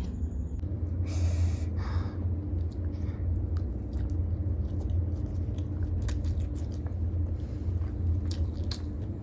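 Close-miked eating of chow mein noodles: chewing and slurping, with scattered small clicks, over a steady low hum. A short noisy burst comes about a second in.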